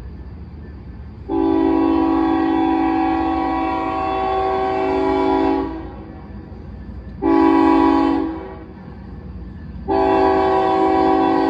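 Air horn of an approaching Union Pacific coal train's lead GE Evolution-series locomotive sounding a chord of several notes. It gives a long blast, a short one, then starts another long one: the end of the long-long-short-long signal for a road crossing.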